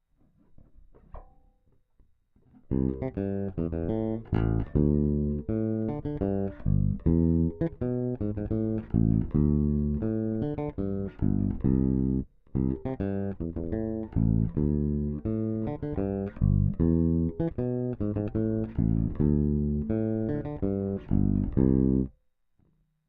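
Bacchus Woodline five-string electric bass playing a quick run of plucked notes, an exercise phrase played over and over. The playing starts a little over two seconds in after some faint noise, stops briefly about halfway, and ends shortly before the close.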